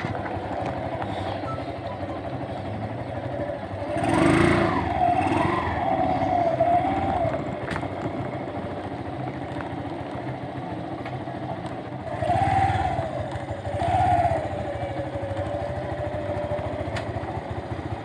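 Small motorcycle engine running while the bike is ridden, its pitch rising and falling as it revs up about four seconds in and again about twelve seconds in.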